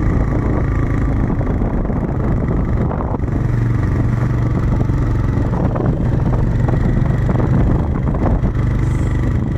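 A vehicle engine running steadily on the move, a continuous low drone over road noise.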